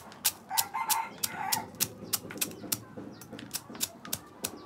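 Stone pestle pounding and crunching dry instant noodles in a stone mortar, sharp knocks at about three a second.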